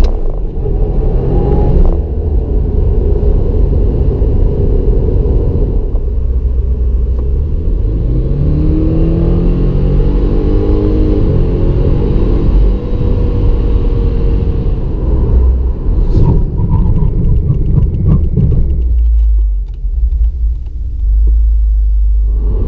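2016 Subaru WRX's 2.0-litre turbocharged boxer four-cylinder heard from inside the cabin under full-throttle acceleration, revs climbing hard through the gears. Near the end it drops to a low idle at a standstill, then revs sharply for a fresh launch.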